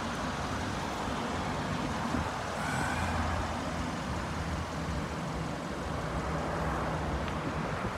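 Steady low hum of motor vehicles and road traffic.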